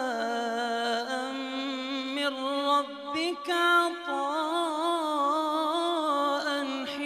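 A man reciting the Quran in a slow melodic chant, drawing out long ornamented notes whose pitch wavers and bends. About three seconds in there is a brief pause, then the voice comes back on a higher note.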